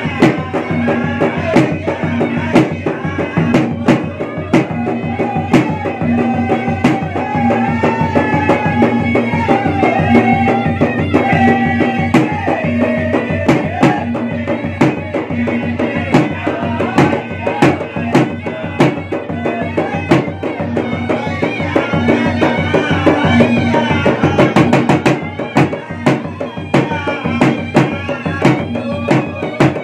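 Makassarese gendang ensemble: two barrel drums struck with sticks in a fast, dense, driving rhythm under a continuous, wavering reedy melody played on a pui-pui, a double-reed shawm.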